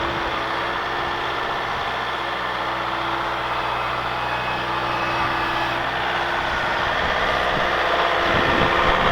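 Skid steer loader's engine running steadily with an even hum, growing slightly louder toward the end.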